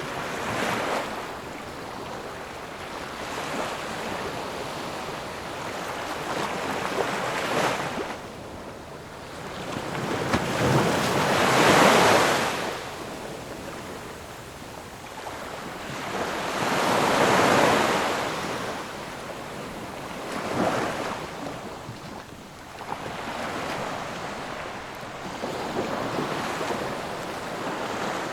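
Ocean waves breaking and washing up the shore, a steady rushing noise that swells and falls back in slow surges every few seconds, with two louder breakers near the middle.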